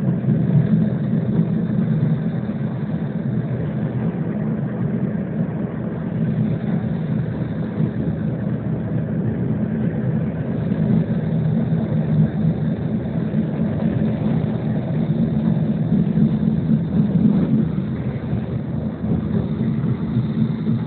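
Steady low rumble inside a running tram car: wheels on the rails and the running gear, with no distinct knocks or signals.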